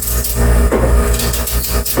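Loud steady low hum with a hiss over it: unwanted noise on the recording. A knife knocks on a cutting board a couple of times while slicing an onion.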